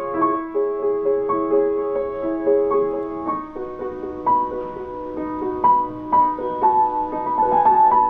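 Solo piano playing a slow, gentle melody: single notes and chords struck about once or twice a second and left to ring and fade.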